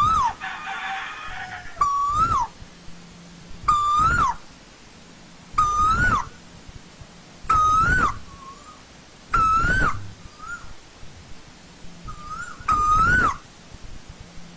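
Asian koel calling: a loud rising-then-falling note, repeated seven times at about two-second intervals. A short rasping noise follows just after the first call.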